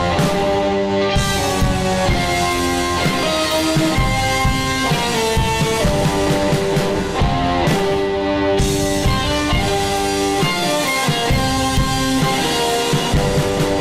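Psychedelic rock music: guitar and drum kit playing.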